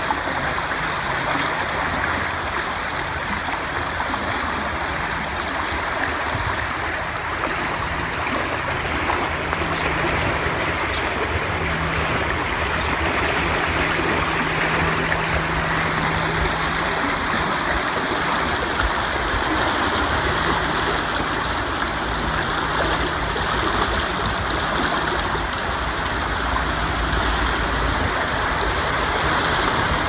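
The Stanislaus River running high and fast: a steady rush of fast water swirling over the riverbed and around a flooded tree.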